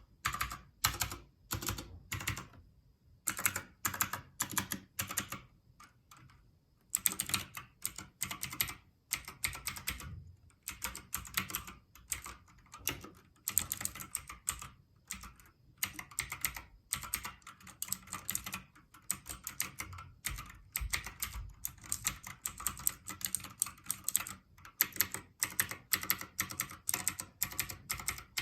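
Typing on a Havit gaming keyboard: rapid key clicks in bursts, with a couple of brief pauses in the first seven seconds and then near-continuous fast typing.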